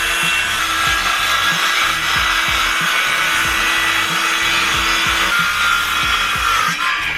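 A circular saw cutting a board, its blade running steadily under load; near the end the pitch starts to fall as the blade spins down.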